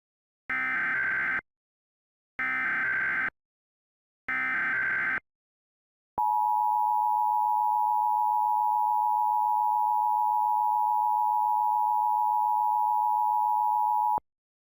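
Emergency Alert System header: three short bursts of screechy digital SAME data, each about a second long with a second's gap, then the steady two-tone attention signal held for about eight seconds and cut off abruptly. Together they open an alert for a severe thunderstorm watch.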